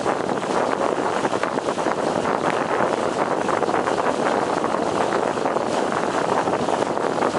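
Water rushing and splashing along the hull of a moving boat, a steady churning noise.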